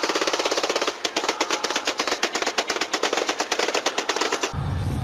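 A long burst of automatic gunfire: rapid, evenly spaced cracks, about a dozen a second, that stop suddenly about four and a half seconds in and give way to a low rumble.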